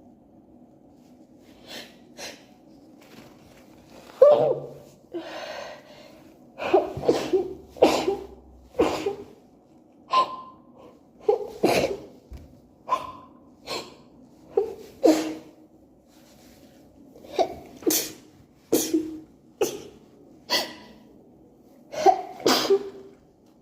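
A woman sneezing over and over in an allergy sneeze attack: a long run of short, sharp sneezes, often two or three in quick succession.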